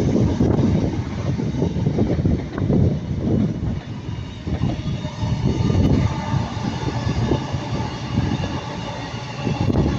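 Passenger train passing at close range, a loud, uneven rumble of wheels on the track.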